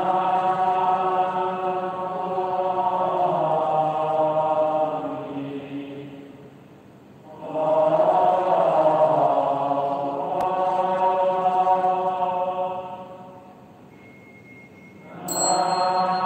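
Slow Buddhist chanting in long drawn-out phrases, each note held steadily, with three phrases of several seconds separated by short pauses.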